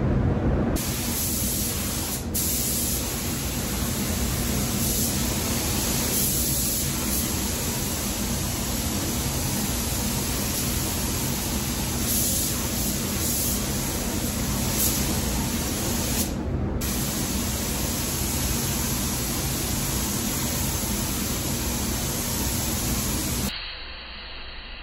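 A SATA 5000 RP HVLP spray gun with a 1.4 tip is spraying Global 8085 sealer at about 27 PSI, giving a steady hiss of compressed air and atomised paint. It breaks briefly about two-thirds of the way through. Near the end it drops to a quieter, duller hiss.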